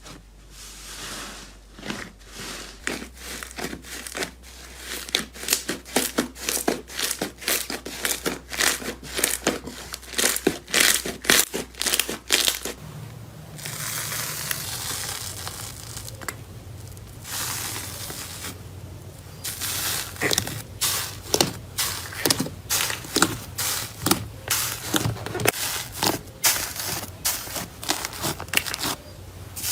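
Slime being squeezed and pressed by hand, making quick runs of crackling pops and clicks, with a smoother hissing, tearing stretch near the middle.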